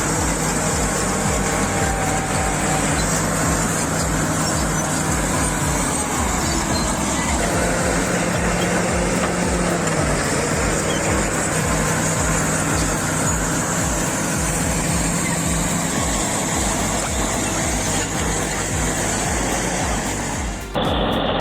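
Heavy diesel engine of a bulldozer running under load, a steady low throb with slight rises and falls in engine speed. Near the end it cuts off abruptly to a different sound.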